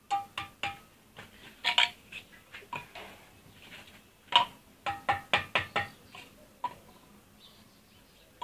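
Steel bricklaying trowel knocking and tapping on perforated red clay bricks as they are set in mortar: a run of sharp clinks, each ringing briefly, in two flurries, one in the first two seconds and one from about four to six seconds in.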